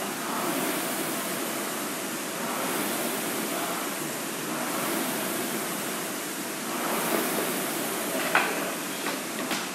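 Concept2 rowing machine's fan flywheel whooshing steadily, swelling with each pull roughly every two seconds. A couple of sharp clicks near the end.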